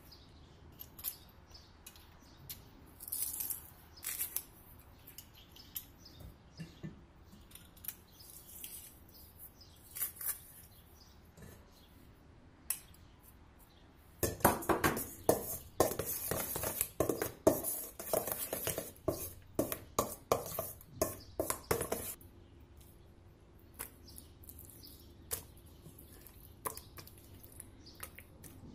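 Metal spoon clinking and scraping against a stainless steel mixing bowl. First come scattered light taps, then about halfway through about eight seconds of brisk stirring of a thick sour cream and mayonnaise mixture, the loudest part, before it settles back to a few faint clicks.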